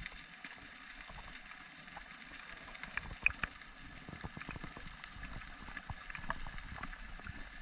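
Underwater ambience recorded through a camera housing: many short, irregular clicks and crackles, with a brief cluster of sharper clicks about three seconds in, over a low rumble.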